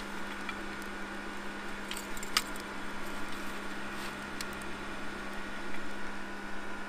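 A steady low hum with a few faint, light clicks, one about two and a half seconds in; no hammer blows.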